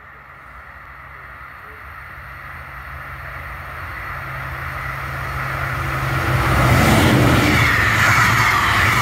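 A push-pull passenger train hauled by a class 223 (Siemens Eurorunner) diesel locomotive approaches at speed and passes close by. A steady low engine drone grows louder, and from about seven seconds in the loud rush and rumble of wheels on rail takes over as the coaches go past.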